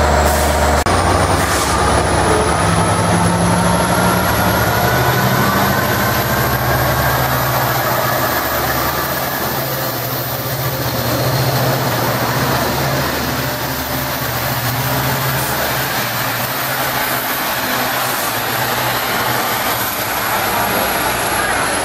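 Long Island Rail Road diesel push-pull train pulling out: the locomotive's engine runs with a deep, steady rumble while the bi-level coaches roll past on the rails. The engine sound fades after about 16 seconds, leaving the rolling noise.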